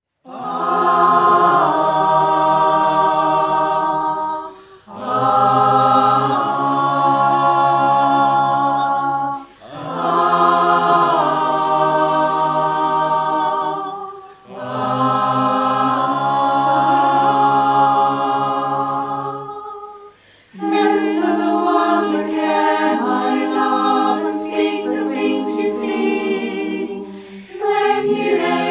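Mixed-voice folk choir singing a cappella in harmony, the voices recorded separately at home and mixed together. Four long held chords with short breaks between them, then from about two-thirds of the way in, more rhythmic singing of words.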